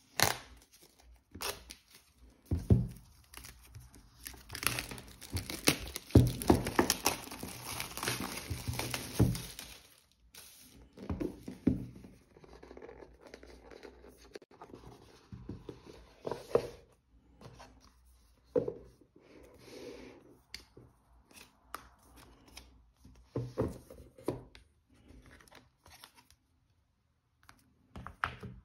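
iPad mini retail box being unsealed and opened by hand: several seconds of tearing and crinkling a few seconds in, then scattered rustles, slides and soft knocks of cardboard and paper packaging as the lid comes off and the tablet and accessories are lifted out.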